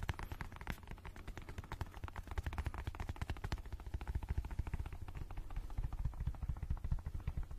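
Very fast fingertip tapping on a soft black case held close to the microphone: a dense, continuous run of dull, low taps, many to the second.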